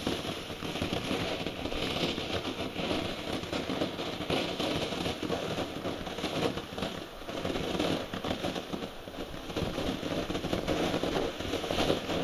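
Standard Fireworks ground fountain firework burning, a steady spraying hiss full of fine crackles as it throws out sparks, dying away at the very end.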